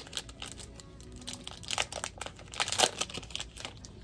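Foil trading-card pack wrapper crinkling and tearing in the hands as it is pulled open and the cards are drawn out. The crackling comes in bursts, loudest about two seconds in and again near three seconds.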